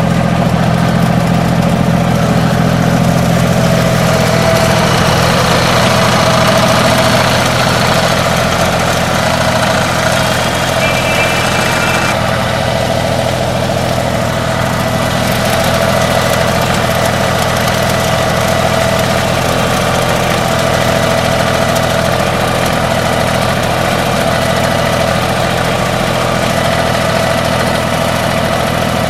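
TYM T233 compact tractor's diesel engine running steadily at a constant speed while its rear backhoe is being operated.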